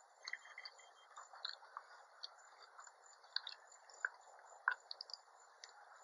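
A person faintly chewing a mouthful of mixed berry buckle, a crumb-topped berry coffee cake with melting ice cream, with scattered small wet mouth clicks.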